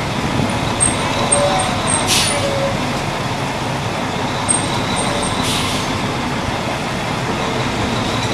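Fire truck driving slowly down a street, heard from its open hose bed: a steady mix of engine and road noise with wind, broken by two brief hisses, one about two seconds in and one about five and a half seconds in.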